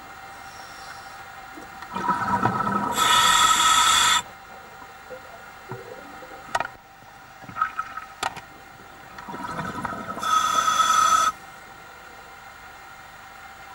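A scuba diver breathing through a regulator, heard underwater: two breaths about seven seconds apart, each a rush of bubbles and air ending in a loud hiss that cuts off suddenly. A couple of sharp clicks fall between the breaths.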